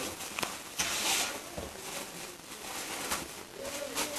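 Shop background in a small room: a few sharp clicks and brief rustling bursts, with faint voices near the end.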